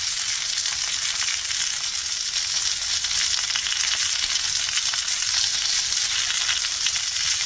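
Raw chicken thighs sizzling in hot olive oil in a cast-iron skillet: a steady frying hiss with fine crackling throughout.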